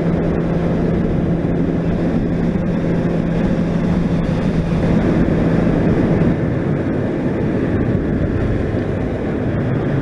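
Honda CBR600RR inline-four engine running at a steady cruising speed, mixed with heavy wind rush and road noise on the onboard microphone. The engine note holds steady, then drops slightly about six seconds in.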